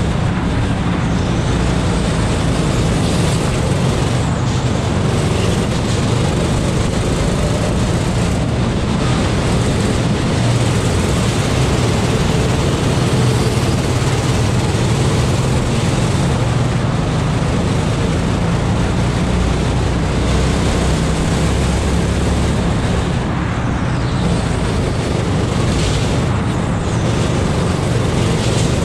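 Go-kart engine running at racing speed, heard close up from the kart, with wind and road noise on the microphone. Loud and steady, with small rises and falls in the engine note.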